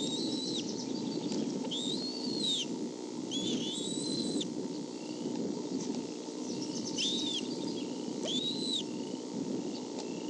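Bald eagle calling at the nest: five thin, high whistled calls, each rising and falling in under a second, over a steady low background noise.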